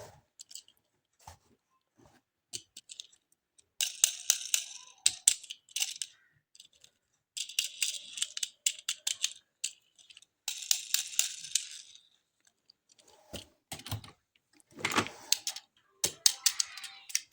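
Small toy cars and their packaging handled close to the microphone: scattered plastic clicks and taps, broken by several short bursts of rattling.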